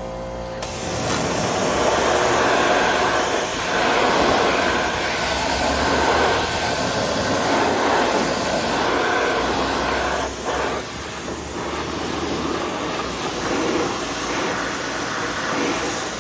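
Pressure washer jet spraying water against a ladder to blast off dirt and algae, with the pump's hum underneath. The spray comes on about half a second in and runs steadily, letting up briefly a few times.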